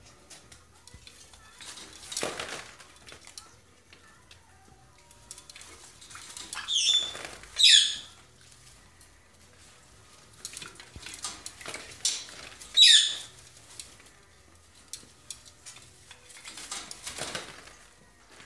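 Hawk-headed parrot bathing in a plastic water bowl: splashing and flapping of wet wings in the water, in several short bursts, the loudest near the middle.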